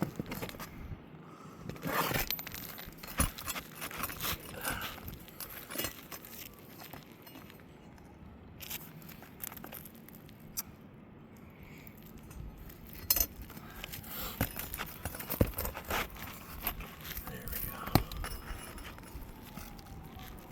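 Irregular hammer knocks, metal clinks and scraping from work on roof shingles and their nails, with the crackle of brittle shingles being lifted and handled. A few sharp knocks stand out in the second half.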